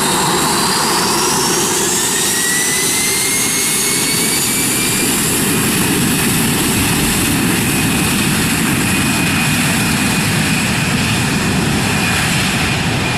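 Jet airplane taking off, its engines at takeoff thrust: a loud, steady rush of noise with whining tones that rise in pitch over the first couple of seconds, then hold.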